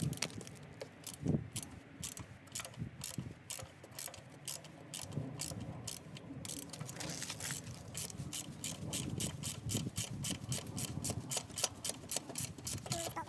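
Hand ratchet wrench clicking steadily, about three clicks a second, as it backs out a rear brake caliper mounting bolt.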